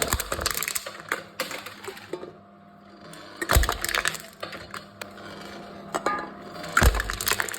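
Aluminium cans being crushed one after another in a wooden crushing machine: three loud crunches about three seconds apart, each with crackling metal that trails off.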